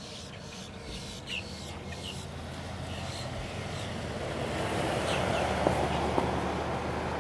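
Pickup truck driving past: tyre and engine noise swells over several seconds and is loudest about five to six seconds in.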